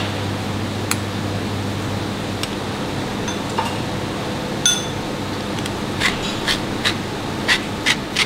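Light clinks of a spoon and small dish against stainless steel mixing bowls over a steady background hum, one clink about halfway through ringing briefly. From about six seconds in, a pepper mill being twisted over a bowl gives a run of clicks, about two a second.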